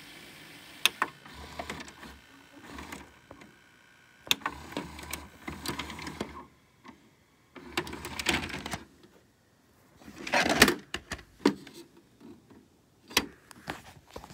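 VCR mechanism clicking and whirring in several short bursts, with a louder burst of noise about ten seconds in.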